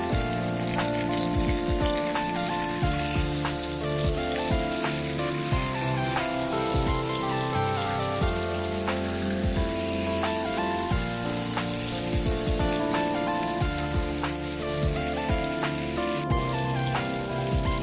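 Background music, with marinated beef pieces sizzling in hot oil in a non-stick frying pan underneath.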